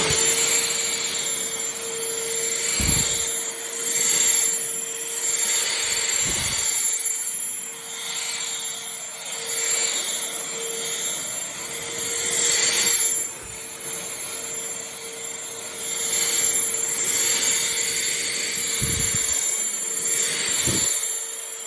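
Shark CH701 Cyclone Pet handheld vacuum running, its motor holding a steady whine under a rushing airflow hiss that swells and fades as the nozzle is moved. A few dull knocks come through, about four times.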